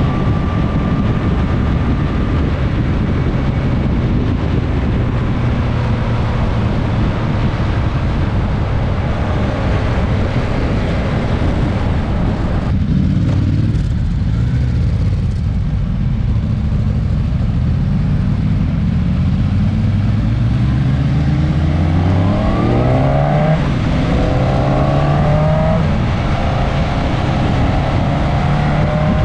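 Onboard sound of a motorcycle's inline-four engine under way, with heavy wind rush over the microphone. In the second half the engine note climbs several times in a row as the bike accelerates up through the gears.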